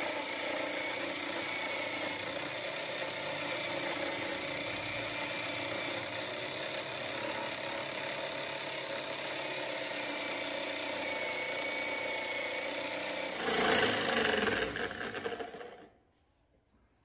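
Electric drill driving a homemade wood lathe, with an abrasive sanding belt on a bow held against the spinning wooden spindle: a steady motor whir over the hiss of sanding. About 13 seconds in it gets louder for a couple of seconds, then the drill winds down and stops near the end.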